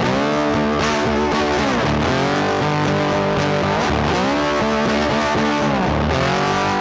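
Background rock music led by distorted electric guitar, with sliding chord changes.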